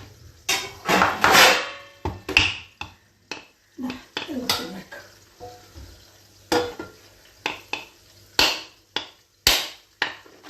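Kitchen utensils and cookware clattering: a series of irregular knocks and clatters.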